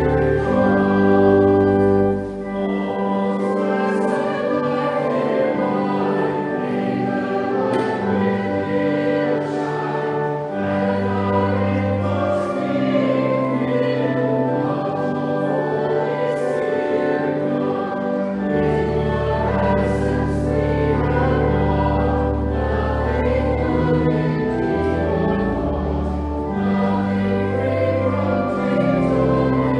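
Choir singing a hymn with organ accompaniment, sustained chords over held low bass notes.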